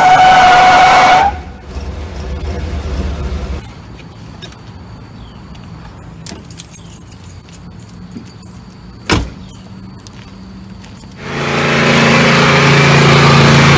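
Tyres squealing in a pickup burnout, a high steady squeal that cuts off about a second in, then a lower engine rumble. A quieter stretch follows with small clicks and one sharp knock. Near the end a loud pickup engine running steadily at high revs during a smoky burnout.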